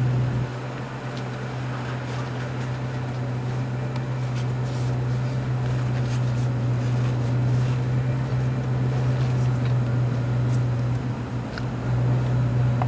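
Steady low machine drone, like an idling engine, with a few light metal clicks from the rescue strut gear being set.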